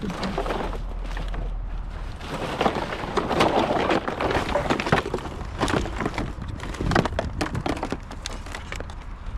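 Irregular knocks, clatter and rustling as a discarded electric fan is pulled out of a curbside debris pile and handled; the handling gets busier after about two seconds.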